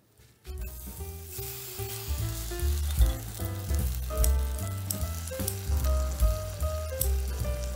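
Beef brisket slices sizzling as they hit a hot pot, starting about half a second in, with sharp clicks of metal tongs. Light background music with a bass line plays throughout.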